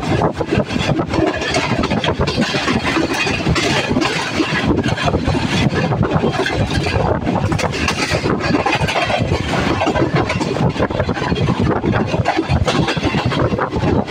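Moving passenger train heard from an open coach doorway: a steady, loud rumble and rattle of wheels running on the rails, mixed with rushing air.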